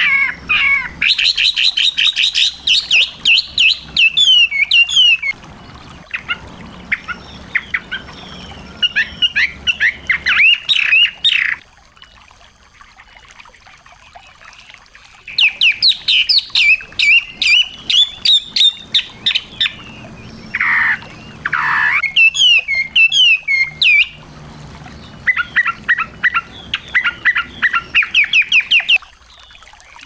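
Small songbird singing: bursts of rapid, repeated high chirps, several a second, broken by pauses of a few seconds. About two-thirds of the way through come two lower, falling notes.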